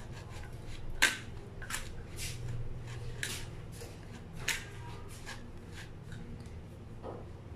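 A fork scraping and clicking against a steel plate while stirring mashed boiled potatoes with flour and spices. Light, irregular clicks come every half second or so, the sharpest about a second in.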